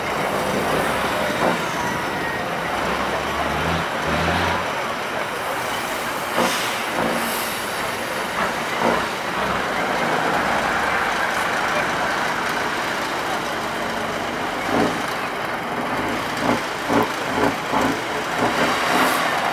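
Diesel engine of a 6x6 Tatra 813 trial truck running under heavy load as the truck crawls through deep mud and up a dirt mound. A run of short, loud bursts comes near the end.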